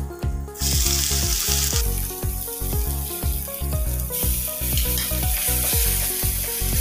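Grated raw mango going into hot oil in a kadai and sizzling, the sizzle picking up about half a second in, with a wooden spatula stirring it through. Background music with a steady beat runs underneath.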